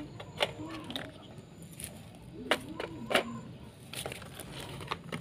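Sharp knocks and taps from small speaker boxes being handled and set down, three louder knocks about half a second in and at two and a half and three seconds.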